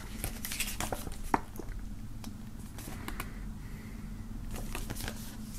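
Paper pages of a stapled CD booklet being turned and handled: faint rustles and small ticks, with one sharper tick about a second and a half in.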